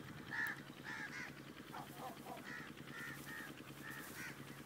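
An animal gives a run of short, high calls, about two or three a second, over a steady low hum.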